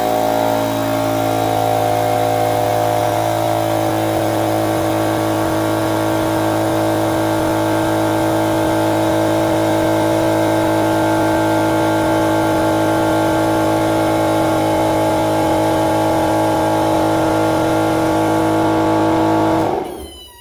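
Hydraulic press's pump motor running with a steady hum while the ram slowly squeezes a roll of duct tape flat; it stops near the end.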